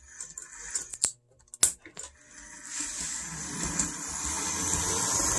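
A few sharp clicks as the model locomotive is set on the rerailer track, then from about two and a half seconds in its electric motor and gears run with a steady whirring rattle.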